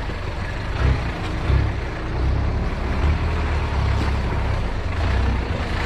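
Off-road 4x4's engine running under load as it drives into a deep mud hole, with a steady low engine note that swells louder a few times.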